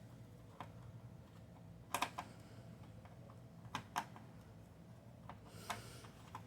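Faint, scattered small clicks and taps of a Phillips screwdriver and screw being worked on the optical-drive holder of an all-in-one computer, a double click about two seconds in, over a low steady hum.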